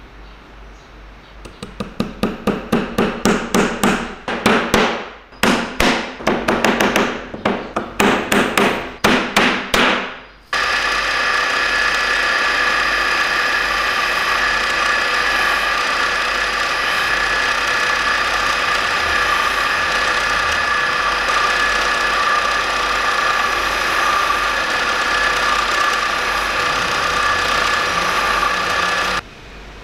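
Rapid hammer blows on metal, several a second with a ringing tone, broken by a brief pause about five seconds in. They stop about ten seconds in. A power tool then starts and runs steadily with a high whine for about eighteen seconds before cutting off suddenly.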